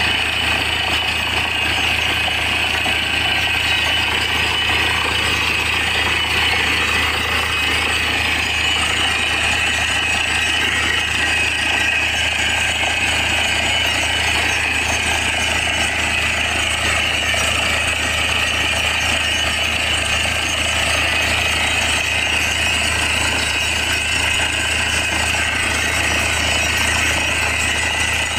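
Truck-mounted borewell drilling rig drilling, its engine and air hammer running steadily without a break while water is blown out of the bore.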